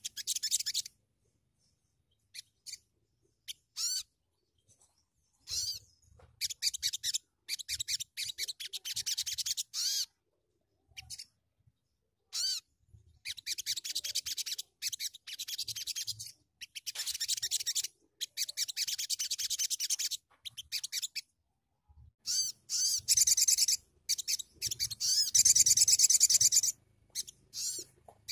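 Young brown-throated sunbird (sogon) singing: bursts of fast, high-pitched twittering chatter with short pauses between them, the longest and loudest run near the end.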